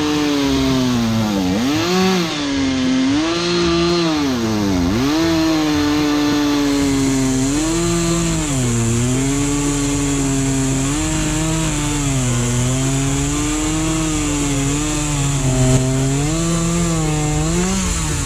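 Stihl two-stroke chainsaw running at high revs while cutting firewood. Its pitch dips sharply twice in the first five seconds, then rises and falls as it works through the wood.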